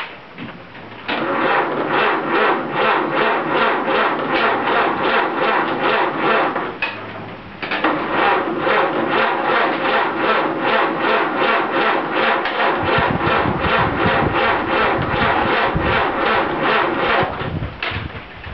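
Ford Model A four-cylinder flathead engine cranked on its starter in two long bursts with a short pause between, a rhythmic chug of about three or four beats a second. Late in the second burst a deeper note joins as the engine begins to fire on its first start, then it all stops.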